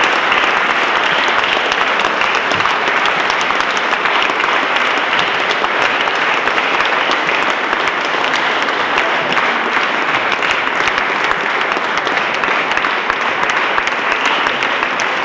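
A concert audience applauding steadily and continuously, a dense sustained wash of many hands clapping.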